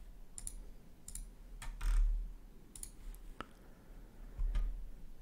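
Scattered clicks of a computer mouse and keyboard, irregularly spaced, about seven in all. Two of them, about two seconds in and near the end, are louder and come with a dull low thump.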